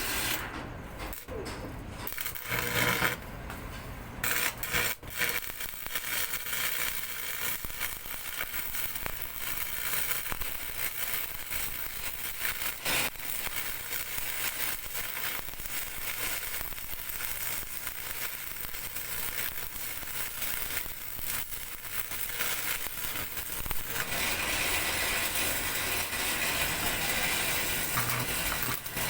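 Electric arc welding: the arc crackles and sputters steadily, with a few short breaks in the first few seconds, then runs almost without a pause.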